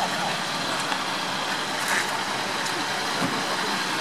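Fire engine idling steadily, a constant engine drone with faint voices over it and a short clank about two seconds in.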